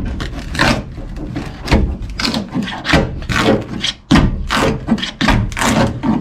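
Repeated scraping and tearing strokes, about two a second, as a hand tool rips the soggy, oil-soaked balsa core and fiberglass layer out of a boat hull; the core is rotten.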